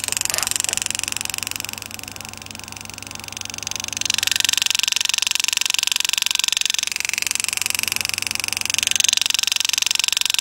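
Pneumatic power-assist engraving handpiece buzzing with very rapid strokes as it drives a graver through a copper coin, cutting short straight lines. It is softer for a moment about two seconds in and louder from about four seconds in.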